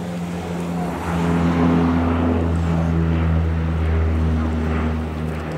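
Twin-turboprop Canadair amphibious water bomber flying low overhead: a steady propeller drone with several held tones, growing louder about a second in.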